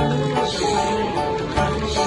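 Background music: held melody notes over a bass line that changes note about every half second.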